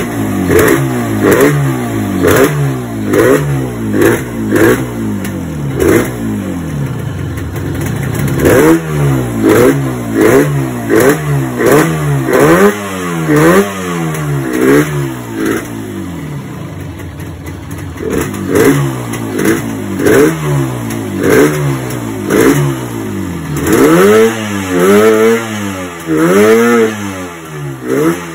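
Yamaha RD 350's air-cooled two-stroke parallel-twin engine running and being revved over and over in quick throttle blips, each rising and falling in pitch, with a few longer, higher revs near the end. It is running on a newly fitted Allied digital CDI ignition and, by the owner's account, misfires slightly from excess oil.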